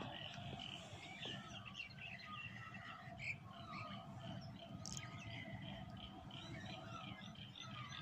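Faint chorus of small birds chirping and calling: many short, overlapping notes, some gliding in pitch. Underneath runs a low, steady rumble.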